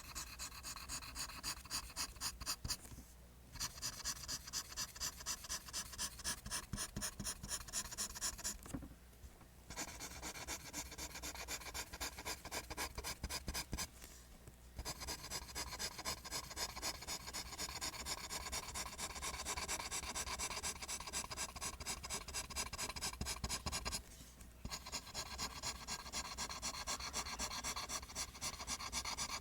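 Pencil drawing lines on paper: quick, even back-and-forth scratching strokes, several a second, stopping briefly four times before starting again.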